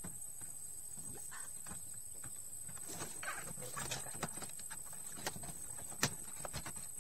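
Scattered light clicks and knocks of plastic parts as an Epson L360 inkjet printer's printhead carriage is handled and fitted back into place, with one sharper click about six seconds in.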